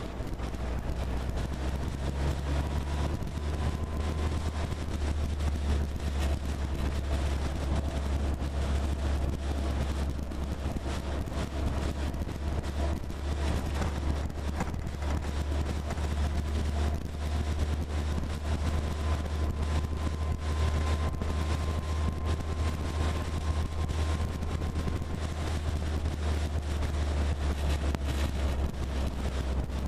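Military-style jeep driving, heard from a microphone on its hood: a steady low engine and road rumble with wind buffeting and rattles throughout. A faint high whine comes and goes.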